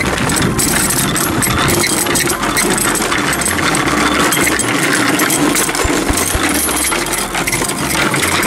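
Small child's bicycle with training wheels rolling over paving: a steady clattering rattle.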